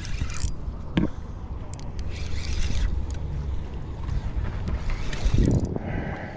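Wind rumbling on the microphone and water washing around a small open boat, with a sharp click about a second in.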